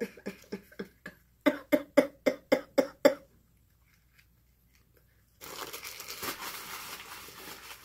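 A woman laughing in a quick run of short voiced pulses, about four a second, that stops after about three seconds. After a silent gap, a steady rustling of food packaging starts near the end.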